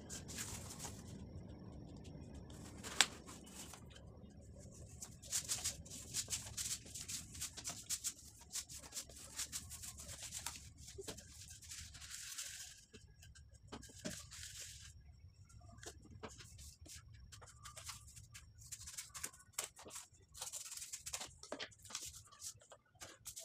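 Cardboard strips and plastic bottles being handled, slid and set down on a plastic lap desk: stretches of rustling and scraping with scattered light taps and clicks, and one sharp tap about three seconds in.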